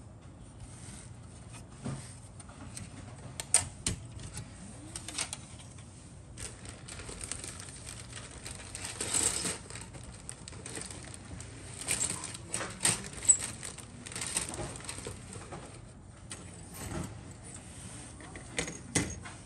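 Plastic model-kit sprues and parts being handled: light clicks and clatters as the parts knock together and are set down on a cutting mat, with a brief rustle about halfway through.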